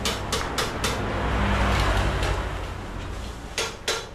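The 7 hp engine driving a YM 3000 grass chopper running empty on a test start. It speeds up with a swelling rush about a second in, then eases back. Sharp ticks come about four times a second at the start and again near the end.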